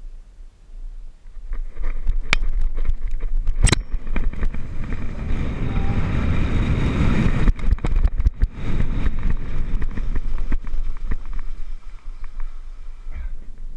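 Wind rushing on a chest-mounted camera's microphone, mixed with the hiss of sand under a bodyboard sliding feet-first down a sand dune. Two sharp knocks come about two and three and a half seconds in, and the rush eases near the end.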